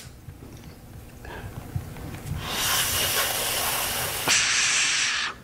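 A long hissing draw of breath through a small hand pipe held to a lighter flame, building over a couple of seconds, loud and steady, then cutting off abruptly near the end. It is a first-timer's inhale, which he thinks drew little smoke.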